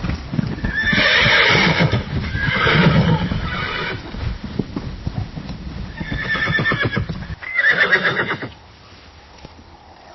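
A horse neighing four times, each whinny a shaky, quavering call about a second long, with hooves clopping and stamping underneath during the first three. The hoof sounds stop suddenly just before the last neigh.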